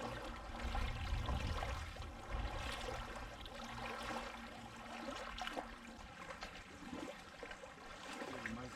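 Lake water lapping and trickling, with scattered small splashes and a low rumble in the first few seconds.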